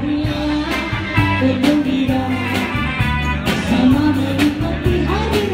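Live band playing a song: a woman singing a melody into a microphone over electric guitars, keyboard, bass and a drum kit keeping a steady beat.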